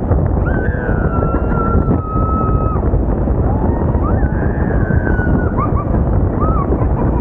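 Wind buffeting the microphone and the rumble of a moving bus and traffic echoing in a road tunnel, heard from an open top deck. Over it, a few high-pitched drawn-out tones slide and break off: a long one about half a second in, then shorter ones in the second half.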